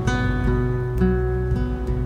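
Background music: strummed acoustic guitar, with a new chord stroke about every half second.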